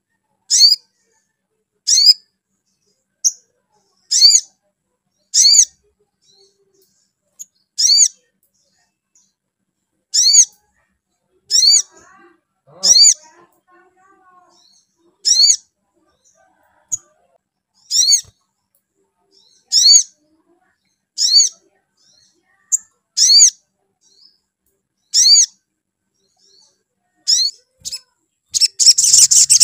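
Olive-backed sunbird giving short, sharp, high calls every second or two, a call used as a lure to provoke sunbirds into singing. Just before the end it breaks into a loud, fast, unbroken twittering.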